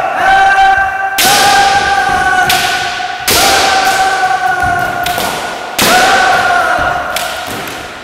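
Kendo kiai: long, drawn-out shouts, each held for a second or two and slowly fading, set off about four times by a sudden crack of a bamboo shinai strike and the stamp of a bare foot on the wooden floor.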